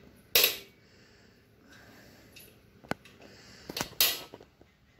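Metal tool clatter: a half-inch 12-point socket and breaker bar being fitted and worked on the cylinder head bolts of a Harley-Davidson XR1200. Two short loud clanks, one about half a second in and one about four seconds in, with a sharp click between them.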